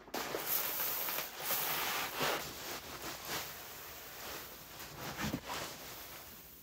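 Plastic potting-mix bags rustling as they are handled, then coarse perlite pouring from its bag into a plastic tub with a soft hiss.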